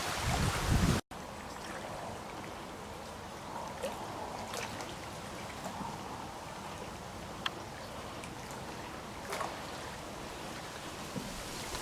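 Wind buffeting the microphone for about a second, then a sudden cut to a steady, quieter wash of trickling water with a few faint scattered ticks and drips.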